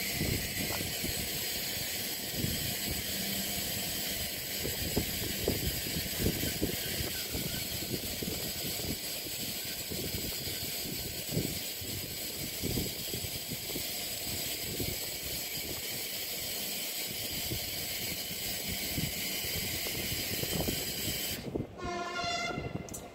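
Steady outdoor noise with wind gusting on the microphone, then, near the end, the horn of an approaching RENFE S120 Alvia electric train sounds a steady chord for about a second and a half.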